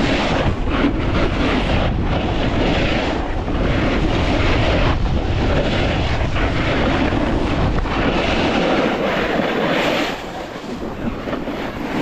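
Steady rush of wind on the microphone with skis sliding on snow during a downhill ski run, easing about ten seconds in.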